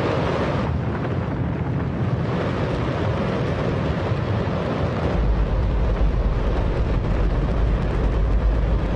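Liquid hydrogen–oxygen rocket engine firing on a test stand: a very loud, continuous rumble. The deepest part of the rumble grows heavier about five seconds in.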